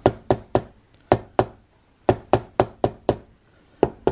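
Wood-carving chisel being tapped into a gunstock with about a dozen sharp knocks in short runs, setting in the outline of a brass patchbox side-plate inlet.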